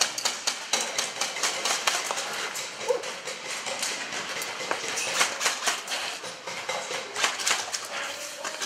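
Airsoft gunfire: many irregular, sharp clicks and cracks of replica guns firing, several a second.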